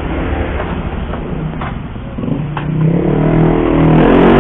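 Steady road and traffic noise, then a motor vehicle's engine speeding up about three seconds in, rising in pitch and getting louder.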